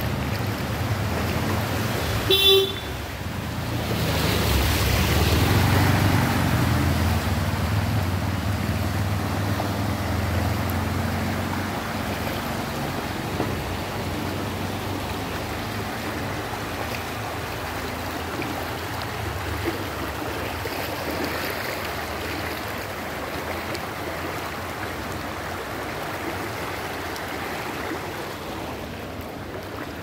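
Floodwater running along a street, a steady rush of water that swells for several seconds and then settles. A brief vehicle horn toot sounds about two and a half seconds in.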